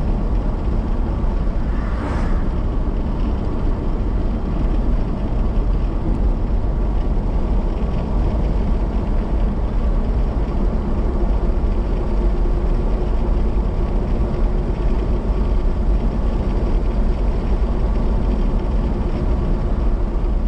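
Steady road and engine noise of a car cruising on a paved two-lane highway, heard inside the cabin, with a brief sharp noise about two seconds in.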